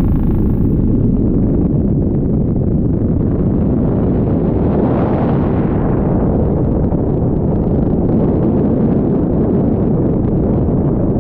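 Helicopter in flight heard from on board: a steady, loud rush of rotor and engine noise with wind buffeting the camera microphone. The rush swells briefly about five seconds in.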